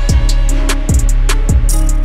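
Background music with a steady drum beat over deep, sustained bass.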